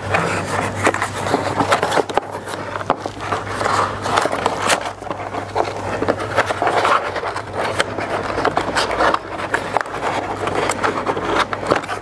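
Close-up handling of a Dyson hair dryer and its cord over a cardboard box: repeated scraping, rustling and many small clicks and knocks as the parts are lifted and turned. The dryer is not running.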